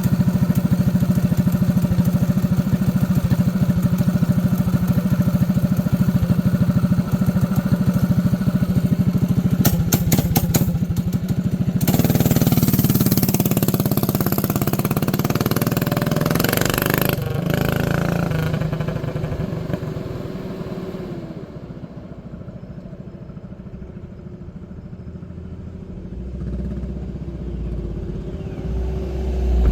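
Predator 212cc single-cylinder four-stroke engine on a mini bike running steadily. About twelve seconds in it revs up and pulls away, then fades into the distance. A low rumble grows again near the end.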